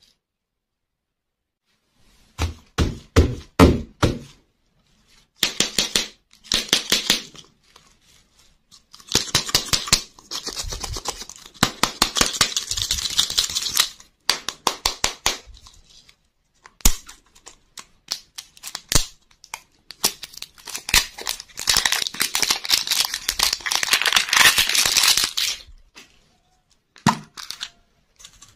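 Plastic candy wrapper crinkling and tearing as toy-filled lollipops are unwrapped by hand, in long crackly stretches broken by sharp clicks of the plastic shells. A few low knocks about two to four seconds in.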